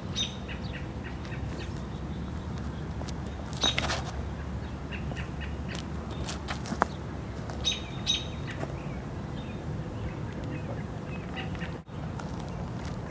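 Birdsong: clusters of short, high chirps repeating about every four seconds over a steady low rumble.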